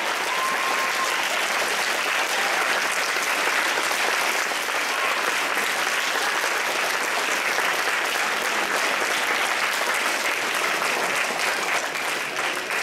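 Audience applauding steadily, thinning into separate claps at the very end.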